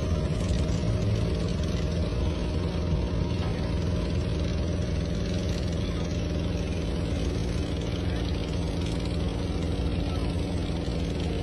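Boat engine idling steadily.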